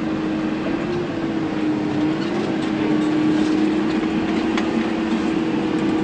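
Tractor diesel engine running steadily under load at about 1,400 rpm, a constant drone heard from inside the cab, its pitch wavering slightly a couple of times.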